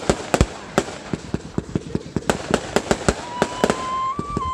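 Fireworks going off in a rapid string of sharp bangs, several a second, with a steady whistle starting about three seconds in and lasting about a second and a half.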